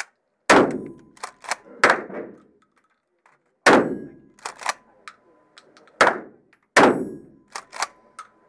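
Shotgun firing in an indoor range: five loud shots at uneven gaps of about one to two seconds, each ringing on, with lighter sharp cracks in pairs between them.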